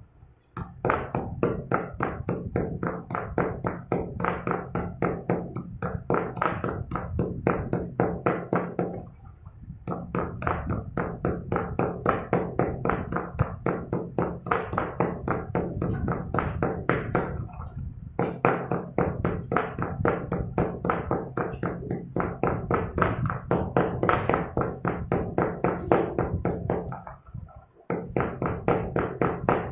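Slate pencils being pounded in a stone mortar with a stone pestle: rapid knocks, about four to five a second, in long runs broken by short pauses roughly every nine seconds, as the broken pieces are crushed down to powder.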